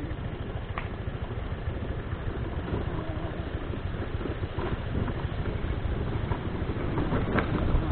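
Motorcycle running at low speed over a rough dirt track, a steady low rumble with a few short knocks along the way.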